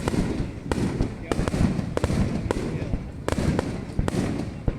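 Aerial fireworks bursting in rapid succession: sharp bangs and crackles come two or three a second over a continuous low rumble of booms.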